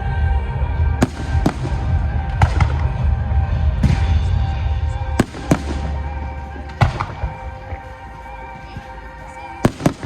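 Fireworks bursting in a series of sharp bangs, about ten of them, over music. A deep rumble underneath fades out a little past halfway.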